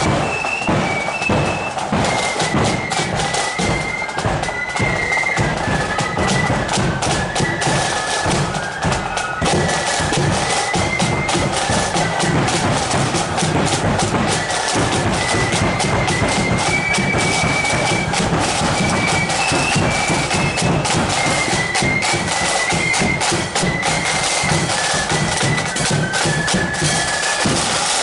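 A marching flute band plays a tune on high-pitched flutes over snare drums and bass drum, the flute melody sitting high above a steady drum beat.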